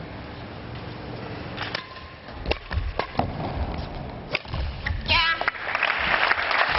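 Table tennis rally: the ball clicking off bats and table about every half second, then a brief shout and applause starting up near the end as the point is won.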